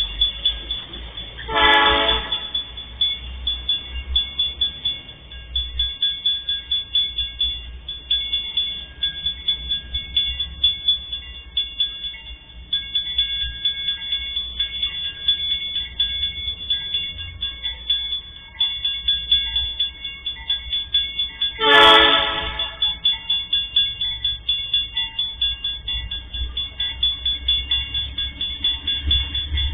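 Diesel freight locomotive's horn sounding two short blasts, about twenty seconds apart, the second louder. Under them, a level-crossing warning bell dings rapidly and steadily, and the approaching locomotive's engine gives a low rumble.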